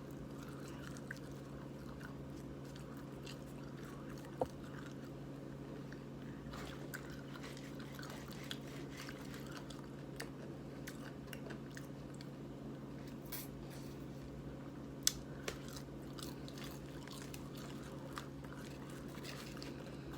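A person chewing and biting fast food close to the microphone, with scattered small crunches and clicks over a steady low hum. The sharpest clicks come about four seconds in and about fifteen seconds in.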